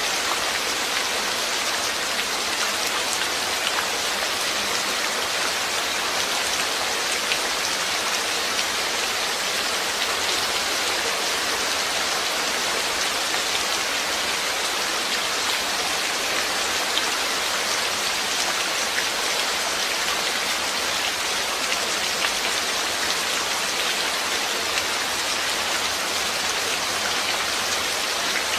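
Steady rain falling, a dense even hiss of drops with fine individual patters on a surface.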